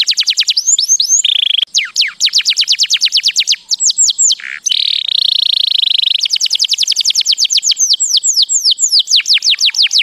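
Canary singing: fast rolls of repeated downward-sweeping notes, about ten a second, broken twice by a harsher buzzy note.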